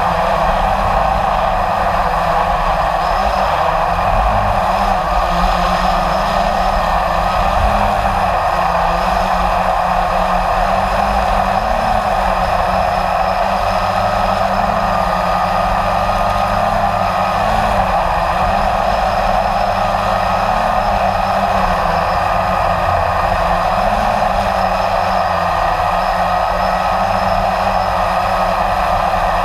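Blade 350 QX3 quadcopter's four electric motors and propellers whirring steadily, heard from the camera riding on it, the pitch wavering slightly as the motors adjust.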